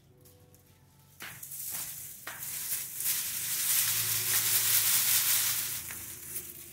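Dry sesame stalks and pods being tipped over and shaken onto a sheet: a couple of knocks about a second in, then a loud, dry rustling hiss of brittle leaves and pods with the seeds pattering out, easing off near the end.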